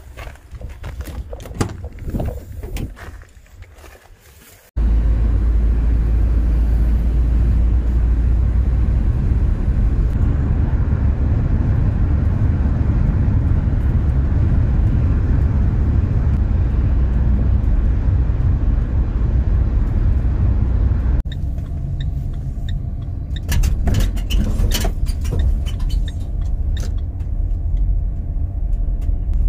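Steady low rumble of a car driving at speed, tyre and engine noise heard from inside the cabin, which starts abruptly about five seconds in after a few seconds of scattered clicks and knocks. From about twenty seconds in the rumble is quieter as the car drives more slowly, with clicks and knocks over it.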